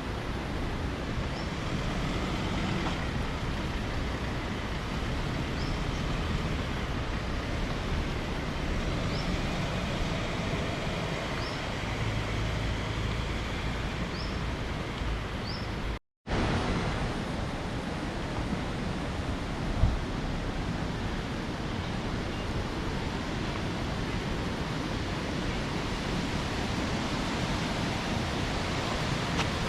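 Steady rush of a waterfall's falling water, an even hiss across all pitches. A few faint high chirps in the first half, and the sound cuts out briefly about halfway.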